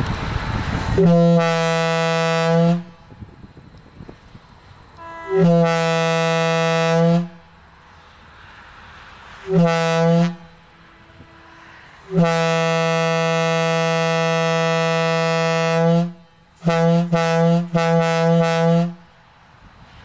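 Leslie A200 single-chamber restricted aluminium air horn from a Milwaukee Road locomotive, blown on compressed air: one low steady note in two long blasts, a short one and a longer one, then a quick run of short toots near the end.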